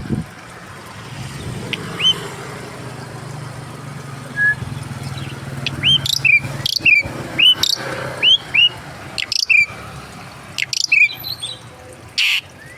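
Aviary birds chirping: a run of short calls, each rising quickly then dipping, coming thick and fast from about six seconds in, with a brief harsh burst near the end. A low steady hum sits underneath during the first half.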